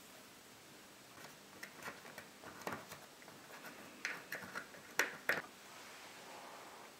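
Light clicks and taps of a metal spoon against a batter bowl and plastic cake molds as batter is spooned in, then a wooden skewer poking the batter in the molds, with two sharper taps about five seconds in.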